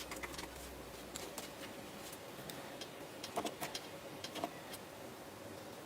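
Hands pressing and kneading slime, giving scattered small clicks and crackles, with two louder pops about three and a half and four and a half seconds in.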